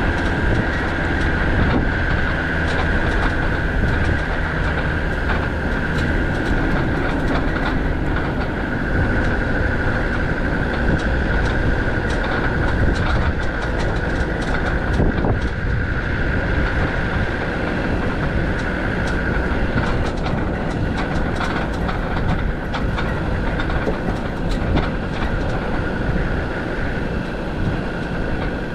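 Land Rover Defender TD5 90 driving over a rough, stony dirt track. Its five-cylinder turbodiesel runs steadily under a constant high whine, with frequent knocks and rattles from the body and suspension over the bumps.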